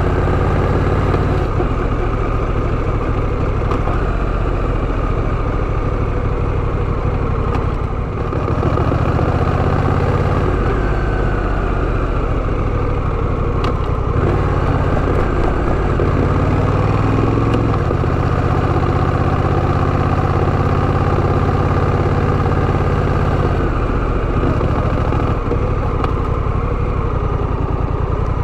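Honda Rebel 1100 DCT's parallel-twin engine running at low revs, its pitch stepping up and down several times.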